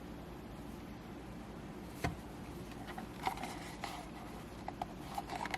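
Small clicks and scraping of a USB-C charging cable being worked in the tight port of a plastic ultralight gaming mouse: one sharp click about two seconds in, then a run of light clicks and scrapes. A steady low background hum runs underneath.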